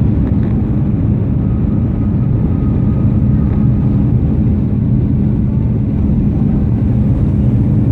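Airliner cabin noise during the climb after take-off: a loud, steady drone of jet engines and airflow, strongest in the low range, with a constant hum underneath.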